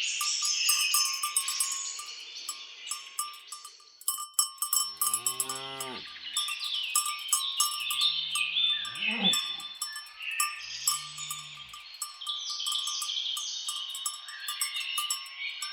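Cattle mooing three times: a long low moo about five seconds in, a rising one around eight to nine seconds, and a short one near eleven seconds. Birds chirp continuously over small, frequent clinks.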